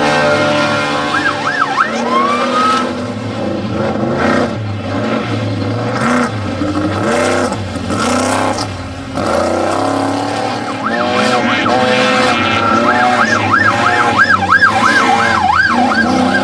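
Off-road desert race vehicle engines running hard at speed, their pitch wavering quickly up and down, most of all in the last few seconds.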